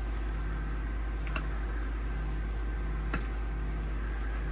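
A spoon stirring shredded hash brown potatoes into a thick, creamy casserole mixture, making soft squishing with two light clicks, about a second and a half and three seconds in. A steady low hum runs underneath.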